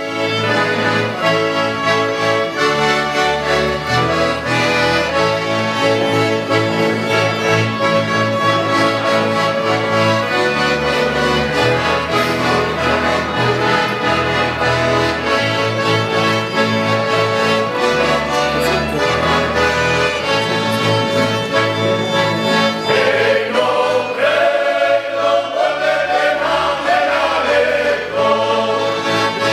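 Accordion playing a lively folk tune, steady chords over bass notes that change every couple of seconds. Near the end a group of voices comes in singing with it.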